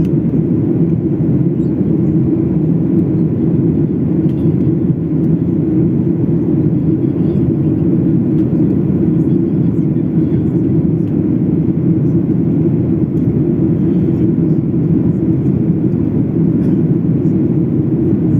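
Steady low drone of an airliner's engines and rushing air, heard from inside the passenger cabin in flight, unchanging in level.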